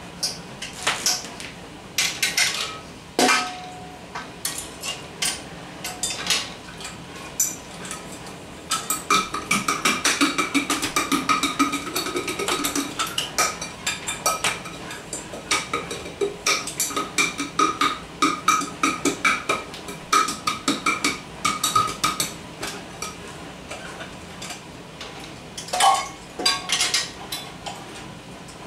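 Metal pots, pans and a wire strainer clanking and clattering as they are handled and knocked against each other, single ringing clanks at first, then a dense run of quick ringing clanks through the middle.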